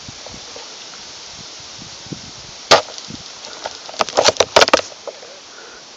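Airsoft guns firing: a single sharp shot, then about a second later a quick burst of about seven shots. Wind noise underneath.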